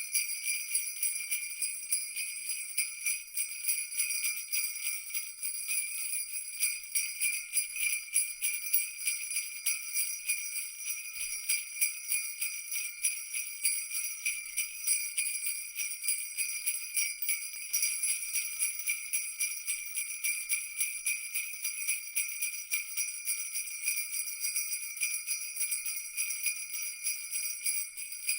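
Jingle bells shaken continuously, a dense steady jingling of many small strikes with no pauses.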